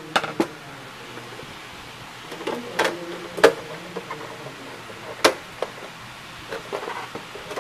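Plastic housing of an Epson L120 inkjet printer knocking and clicking on the workbench as it is gripped and turned: about six sharp knocks, the loudest about three and a half seconds in, over a steady low hum.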